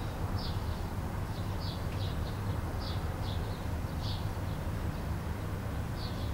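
Small birds chirping: short, high calls, one or two a second, over a steady low rumble.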